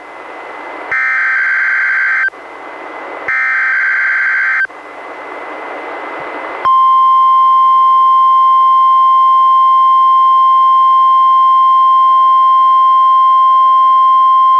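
NOAA Weather Radio test tones played through a Reecom R-1630 weather radio. First come two bursts of SAME digital header data, each a rasping electronic buzz about a second and a half long, with radio hiss between them. About seven seconds in, the steady 1050 Hz warning alarm tone starts and holds.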